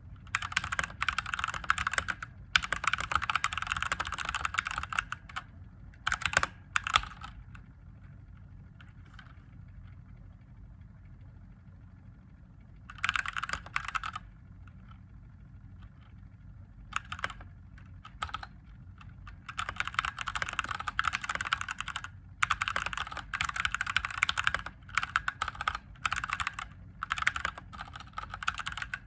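Typing on a mechanical keyboard with Gateron Yellow linear switches: fast runs of key clacks in bursts, broken by pauses of a few seconds, the longest a little past the first quarter.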